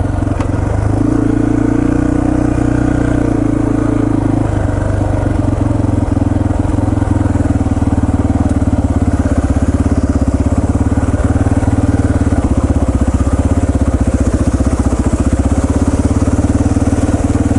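Yamaha TT-R230 trail bike's single-cylinder four-stroke engine running at low revs, a little higher for the first few seconds, then settling into a steady, evenly pulsing chug.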